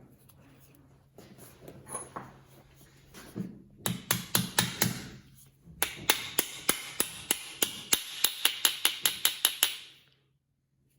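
Hammer tapping on metal: a short irregular run of taps, then a steady run of about five sharp taps a second that stops a second before the end.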